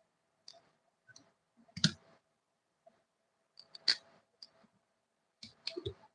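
Scattered sharp clicks and knocks of table fan parts being handled during repair work. The two loudest come about two and four seconds in, with a quick run of several near the end.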